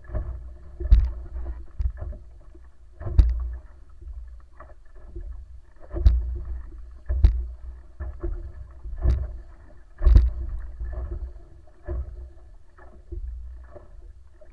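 Wooden wa'apa outrigger canoe under sail: water rushing along the hull over a constant low rumble, with a faint steady hum. About half a dozen loud knocks and thumps come at uneven intervals.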